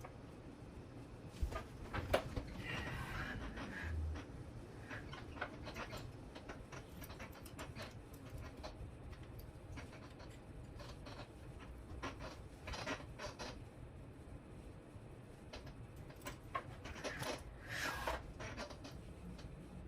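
Light clicks, taps and rustles from hands handling servo and receiver cables and small parts on an RC helicopter frame, coming in irregular clusters.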